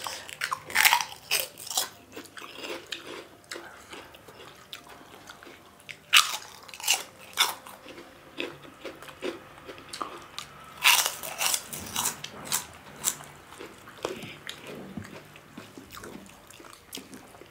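Close-miked eating: wet chewing and mouth sounds broken by clusters of sharp crunchy bites, about a second in, around six to seven seconds, and again around eleven to thirteen seconds.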